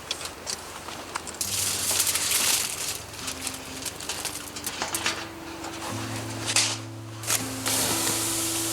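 Background music with slow held low notes, over a steady hiss with scattered crackles that swells louder several times.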